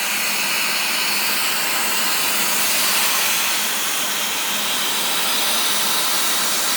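CNC plasma cutter cutting through 4 mm wall steel box section: the plasma arc and its air give a steady, loud hiss, mostly high-pitched, with a faint hum underneath.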